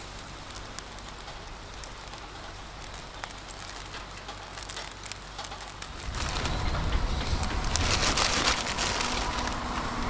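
Yakisoba noodles sizzling in an iron frying pan over a wood fire, with small crackles through the hiss. About six seconds in, the sizzle turns much louder.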